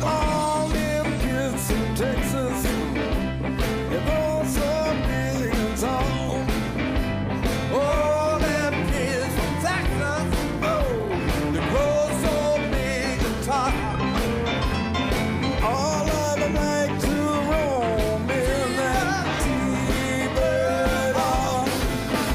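Background rock music with a steady drum beat and a gliding melodic lead line.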